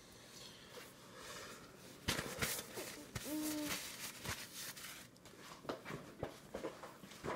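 Scattered light knocks and rustling, with a toddler's short, even-pitched whine about three seconds in.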